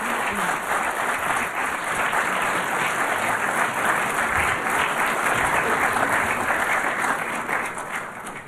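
Audience applauding steadily, cut off abruptly at the very end.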